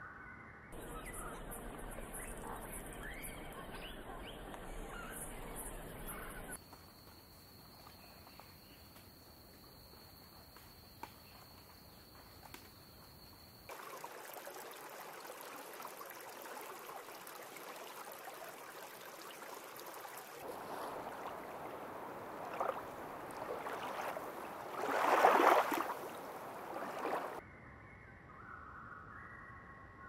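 Outdoor nature sounds cut together in sections: birds calling, then a quieter stretch with a steady high whine, then a rushing, water-like noise with a short louder burst about 25 seconds in.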